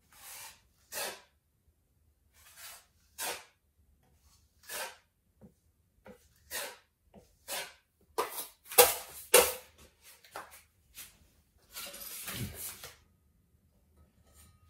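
Steel putty knife scraping filler on a wall and against the edge of a stainless steel mud pan: short scraping strokes about once a second, quicker and loudest around the middle, with one longer scrape near the end.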